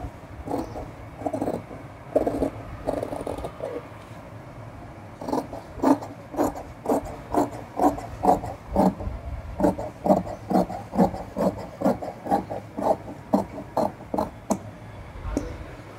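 Large tailor's shears cutting through trouser cloth: a run of snips about two a second, each a short rasp as the blades close on the fabric, with a brief lull about four seconds in.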